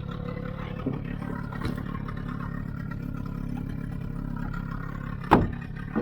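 Boat engine running steadily with a low hum, and a single sharp knock about five seconds in.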